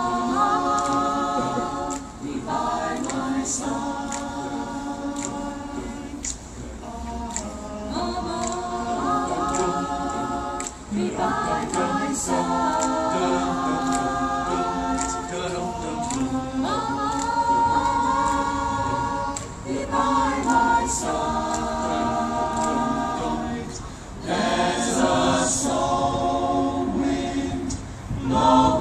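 A choir singing unaccompanied, in held chords and phrases with short breaks between them.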